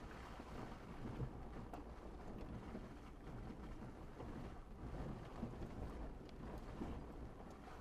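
Low, steady rumble of a vehicle driving slowly over a rough dirt trail, heard from inside the cab: engine and tyre noise with a few faint knocks and rattles.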